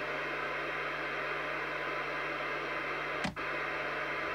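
Steady hiss from a Fidelity 3000 FM CB base station's speaker, receiving channel 19 on the aerial with no station coming through. About three seconds in there is a sharp click and the hiss briefly drops out.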